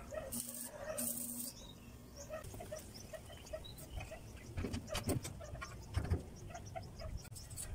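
A handheld power tool runs in two short bursts with a steady motor hum, then several knocks and clanks as a steel grill frame is handled and set against the wall. Small chirps sound faintly in the background.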